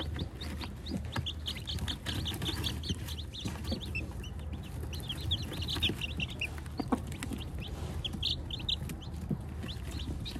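A brood of newly hatched chicks peeping in quick, overlapping high calls, with occasional low clucks from the mother hen among them. A steady low hum runs underneath.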